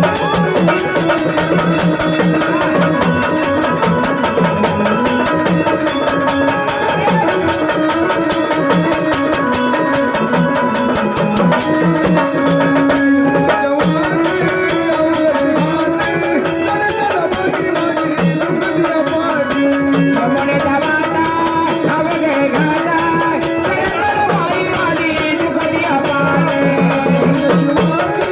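Marathi gondhal folk music: a pitched melody over a steady drum rhythm, briefly dropping out about halfway through.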